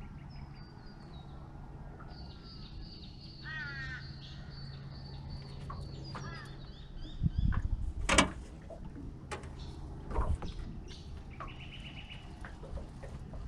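Several birds calling: high chirps and stepped falling notes, with a harsher cluster of calls about three seconds in. In the middle come a few loud knocks and rattles of handled fishing gear, the loudest a sharp clack a little after the middle.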